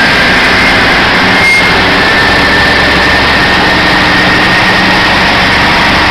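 Heavy truck engine running steadily and loud, with a thin high whine held above the deep rumble.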